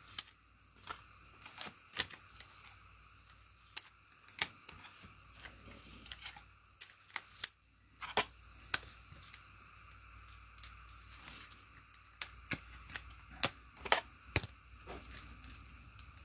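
Trading cards and plastic card holders being handled: irregular sharp clicks and light rustling.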